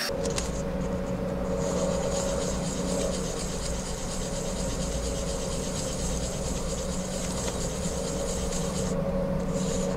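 A resin-and-wood ring rubbed back and forth by hand on fine #2000-grit sandpaper, a steady scratchy sanding, over a steady low hum.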